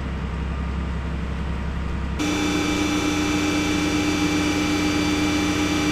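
Heavy machinery running: a steady low hum that switches abruptly, about two seconds in, to a slightly louder steady mechanical whine.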